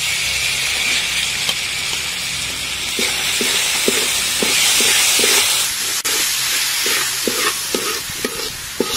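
Soybeans sizzling as they fry in a large wok, with a steady hiss. From about three seconds in, a metal spatula scrapes and tosses them, about two to three strokes a second.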